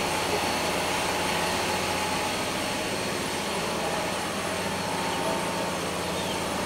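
Steady mechanical drone with a low hum, holding an even level throughout.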